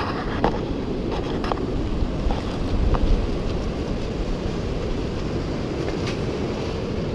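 Wind buffeting the microphone over the wash of surf on the shore, a steady low rumble.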